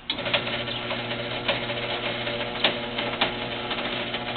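Garage door opener motor switching on and running steadily with a constant hum, its trolley clicking and rattling along the rail as it lifts or lowers the load.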